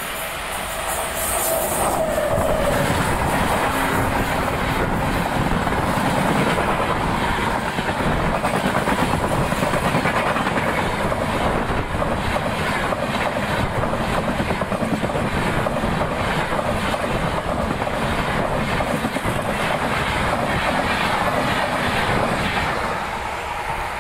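A train passing close by at speed: a steady rush of wheels on rail with rapid clickety-clack over the rail joints. It swells about two seconds in and eases off near the end.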